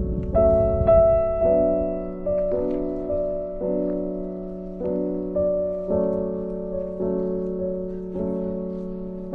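Background music: gentle piano or electric-keyboard chords, struck about once a second and left to ring and fade over a steady low note.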